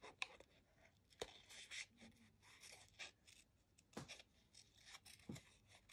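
Faint snipping of small scissors cutting cardstock close around a stamped image, with a few sharper clicks.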